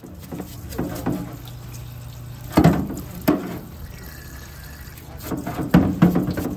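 Bosch 24 V starter's clutch being scrubbed with a brush in a parts-washer sink of cleaning oil: liquid splashing and sloshing, with several sharp knocks of the part against the tub partway through and a cluster near the end.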